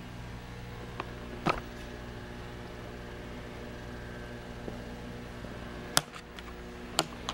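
Steady low machine hum, like a fan running in a small room, with three short sharp clicks about a second and a half, six and seven seconds in.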